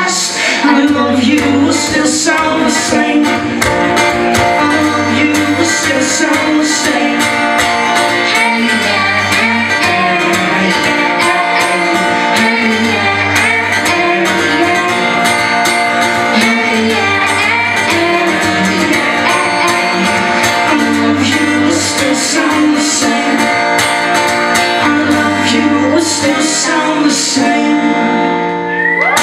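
Live band music: strummed acoustic guitar over a steady low bass line, with singing, the song playing through to its close.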